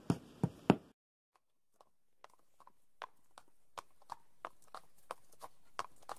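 Horse hooves clip-clopping at a steady walk, about three beats a second. The hoofbeats fade in after a second of silence, with a few sharp clicks right at the start.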